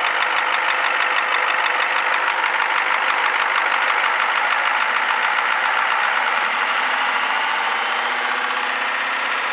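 Ford 7.3 IDI turbo diesel V8 running with a fast, even clatter; the owner asks whether it is a knocking sound. The engine note shifts slightly about six seconds in.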